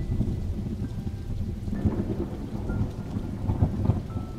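Thunderstorm sound effect: a continuous low rumble of thunder under the hiss of falling rain.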